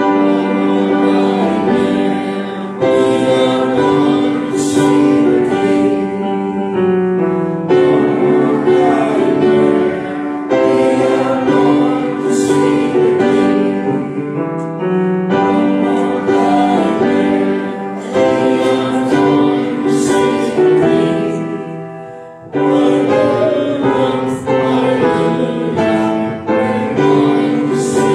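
Congregation singing a hymn to grand piano accompaniment, in phrases of several seconds with short breaks between them.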